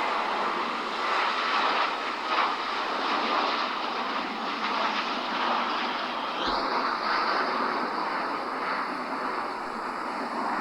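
Jet airliner engines at takeoff power: a steady rushing noise, with a turbine whine that rises in pitch about six and a half seconds in and then holds.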